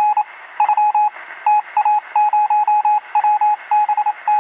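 Electronic beeps on a single tone, keyed on and off in quick runs of short and longer pulses over steady static, with the thin, narrow sound of a radio channel.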